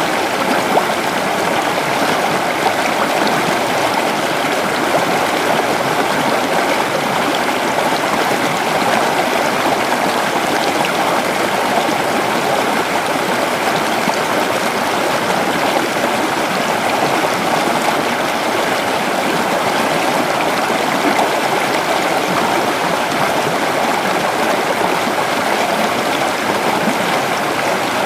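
Creek water running over rocks: a steady, even rush of flowing water with no breaks.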